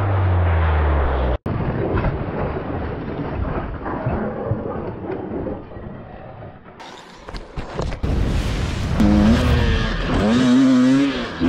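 Motor vehicle engine and road noise across several spliced clips. An engine's revs fall, then the sound cuts out for an instant and gives way to a rushing road noise. Near the end there is a sound whose pitch rises and falls.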